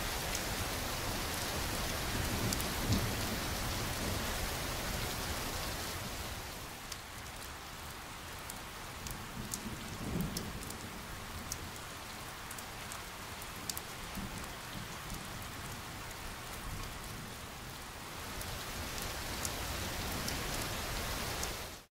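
Steady rain with low rumbles of thunder, one about three seconds in and another about ten seconds in. The rain thins after about six seconds to scattered drop ticks, builds again near the end, then cuts off suddenly.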